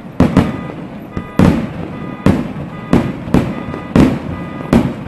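Fireworks shells bursting, about eight sharp bangs in irregular quick succession, each trailing off in a low rumble.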